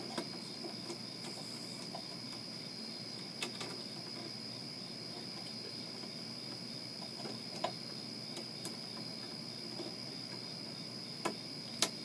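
A few light clicks and taps of wires being handled at a metal electrical junction box, the sharpest two close together near the end, over a steady faint high-pitched whine.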